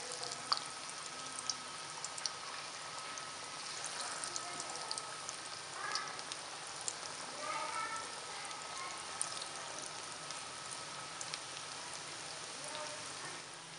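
Potato and spinach pakoras in gram-flour batter deep-frying in hot oil: a steady sizzle with scattered crackles and pops.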